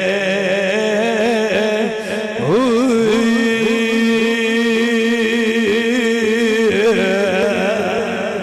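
A man's voice singing a Punjabi Sufi verse as a slow, drawn-out chant, holding long notes with wavering ornaments. About two and a half seconds in, his pitch slides up and he holds the new note for several seconds before it falls away.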